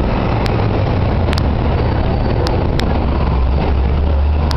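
Steady city street traffic: a continuous low rumble of vehicle engines.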